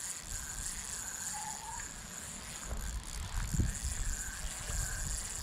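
Wind rumbling on the microphone in gusts from about halfway through, over a steady high hiss and faint repeated high squeaks.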